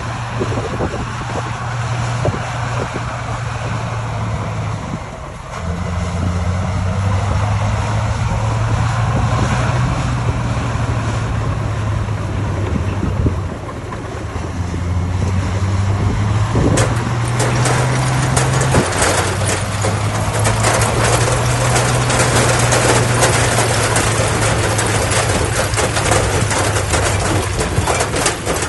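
Diesel engine of heavy earthmoving machinery working, its pitch stepping up and down as the load changes. From a little past halfway a loud rattling, crackling clatter joins it and goes on to the end.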